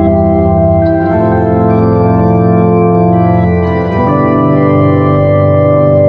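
Background music: slow, held organ-like keyboard chords that shift to new chords about a second in and again about four seconds in.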